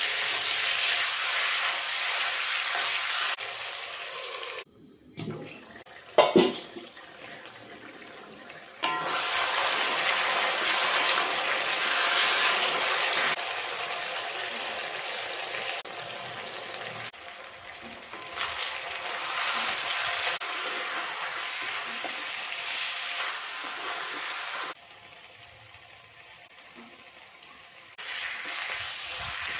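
Curry frying and sizzling in a pan, in several short stretches that cut in and out, with a loud knock about six seconds in.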